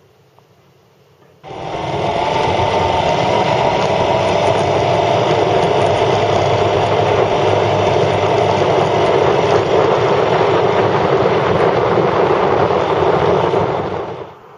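Yamaha FZ6 motorcycle's inline-four engine running steadily while riding, mixed with rushing wind and road noise. It starts abruptly about a second and a half in and cuts off just before the end.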